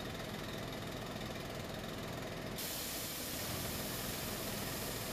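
Steady street noise with a low engine hum underneath; the hiss turns suddenly brighter about two and a half seconds in.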